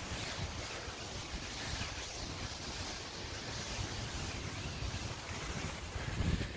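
Wind buffeting the microphone: an uneven low rumble over a steady hiss, growing stronger near the end.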